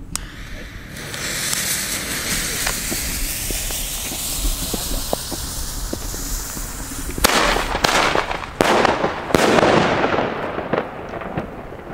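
Firework going off: a steady hiss that builds about a second in and runs for several seconds with scattered small cracks, then a run of loud bangs from about seven seconds in that dies away.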